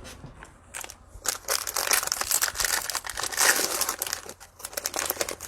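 Cellophane wrapper of a trading card cello pack being torn open and crinkled: a dense crackling that starts about a second in and is loudest a little past the middle.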